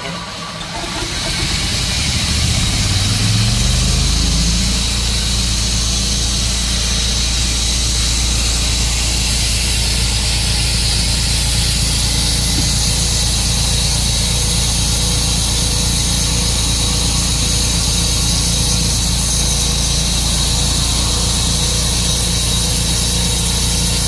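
Sawmill engine running, rising in pitch over the first few seconds as it is throttled up, then holding a steady high speed.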